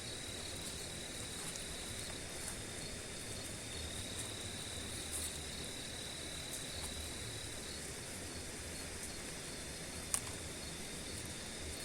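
Insects trilling in one steady high tone over a faint even hiss, with a single short click about ten seconds in.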